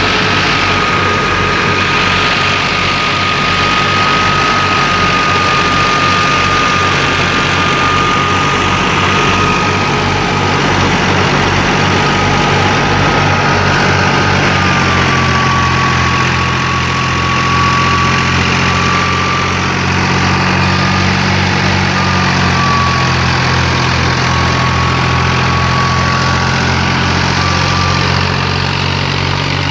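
New Holland Fiat 480 tractor's diesel engine running steadily, powering a thresher at about 1700 rpm, with a steady high whine over the engine note. About halfway through, the engine note and the whine shift slightly in pitch.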